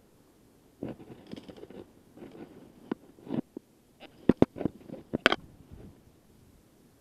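Rustling, scraping and footsteps of a hiker moving through jungle undergrowth, with clothing and gear brushing the body-worn camera. A cluster of sharp knocks comes about four to five and a half seconds in, and the sounds die away near the end.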